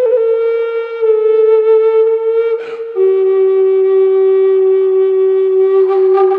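Spirit Bird Native American style flute in G, made of figured maple, played in long held notes with a breathy tone. It holds a higher note, dips slightly about a second in, breaks with a puff of breath near the middle, then settles on a lower note held steadily.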